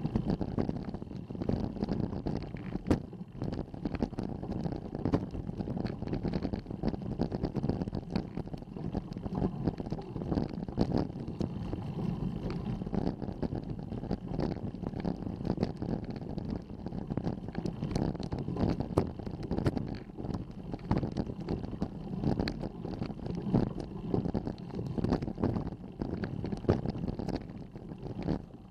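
Wind buffeting and road rumble picked up by a bicycle-mounted action camera, with frequent small knocks and rattles throughout.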